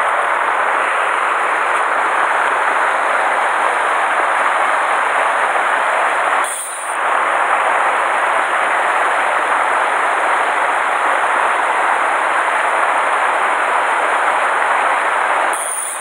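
Fast mountain river rushing over a shallow, rocky riffle: a loud, steady rush of water, dipping briefly about six and a half seconds in.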